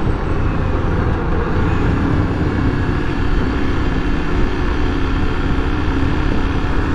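Honda XRE300's single-cylinder engine running steadily at cruising speed, with wind rushing over the microphone.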